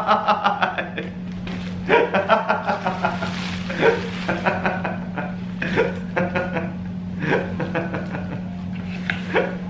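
A man laughing and exclaiming in excited bursts of voice, over a steady low hum.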